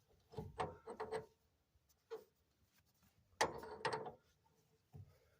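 Metal tools and parts being handled, clinking and rattling in several short bursts with quiet gaps between.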